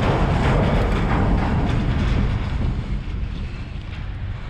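Wind buffeting the microphone, a steady low rumble that eases a little past the middle.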